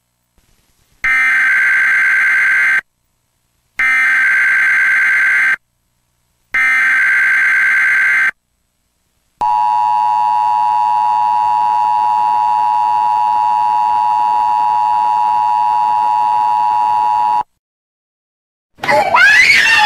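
Emergency Alert System broadcast of a Civil Emergency Message: three SAME header data bursts, each a harsh buzzing screech under two seconds long with short gaps between, then the two-tone EAS attention signal held steady for about eight seconds. A loud sound with sliding pitch begins near the end.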